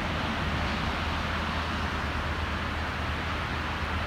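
Freeway traffic making a steady rushing noise with a constant low rumble underneath.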